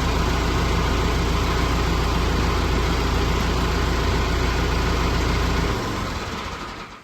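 A vehicle engine idling steadily close by, then cutting out near the end as it is switched off.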